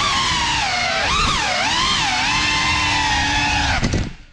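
Cinewhoop FPV drone's brushless motors whining, the pitch swooping up and down with the throttle. Near the end there are a few knocks as it crashes to the floor, and the motors cut off.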